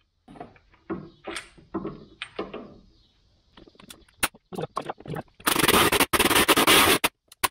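Tools clicking and scraping as a bushing press tool is fitted to the rear lateral link, then a pneumatic impact wrench runs in a loud burst of about a second and a half, with one brief break, driving the press tool on the suspension bushing.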